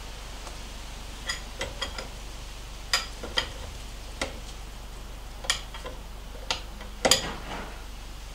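Sharp, irregular metal clicks and clinks of hand tools working a fuel-hose fitting clamped in a bench vise. There are about a dozen of them, and the loudest comes near the end.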